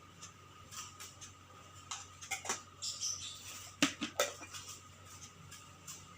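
A few short light knocks and clicks of small objects being handled, scattered over faint room tone.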